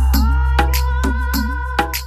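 DJ remix music with a heavy, continuous bass and a steady drum beat, slowly dropping in level toward the end.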